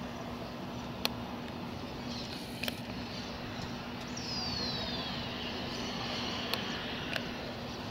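Distant Airbus A330-300 jetliner on final approach: a steady jet rumble. A few sharp clicks are scattered through it, and a short falling whistle sounds about four seconds in.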